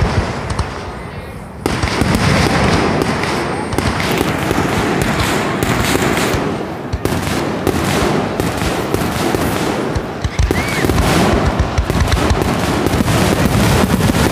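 Aerial fireworks display: shells bursting in rapid succession. After a brief lull it becomes a dense, loud, unbroken run of bangs from about a second and a half in.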